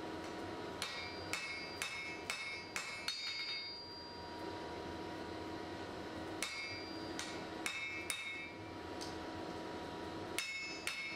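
Blacksmith's hammer striking hot steel on an anvil, forging a hatchet blank. The blows come in three short runs of about two a second, each with a light metallic ring, separated by pauses. A faint steady hum runs underneath.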